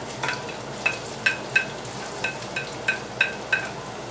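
Chopped onion sizzling in hot oil in a stainless steel pot, with about a dozen light, ringing clinks as a wooden spatula scrapes the last of the onion off a plate into the pot.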